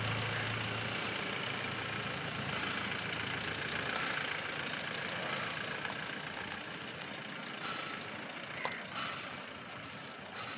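Water-well rotary boring rig running: steady engine and machinery noise, with a sharp click near the end.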